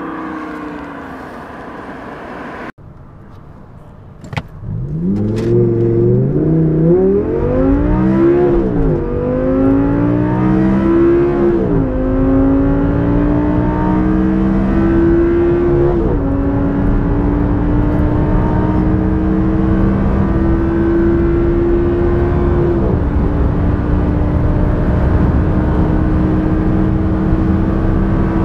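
Audi R8's 5.2-litre V10 under full-throttle acceleration, heard from the cabin. Its note climbs steadily through the gears, with a sudden drop in pitch at each of several upshifts, and each climb gets longer and slower in the higher gears. It opens with the car's engine note falling as it comes along a road, then cuts off suddenly.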